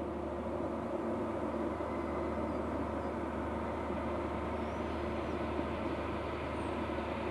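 Diesel train engine running steadily with a dense, even drone that grows a little louder in the first second.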